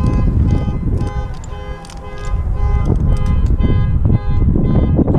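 A repeating pattern of steady electronic tones, about two short blocks a second, over a loud low rumble.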